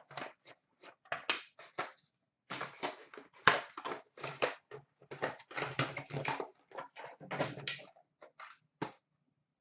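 Cardboard and plastic packaging crinkling and tearing in quick, irregular crackles as a hockey card box is opened by hand and its cards unpacked. There is a short pause about two seconds in and a last crackle near the end.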